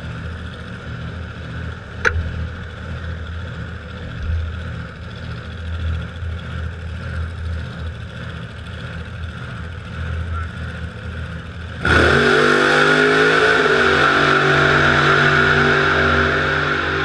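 Car engine sound: a low uneven rumble, a sharp click about two seconds in, then about twelve seconds in an engine suddenly fires up loudly, its pitch flaring and then settling into steady running.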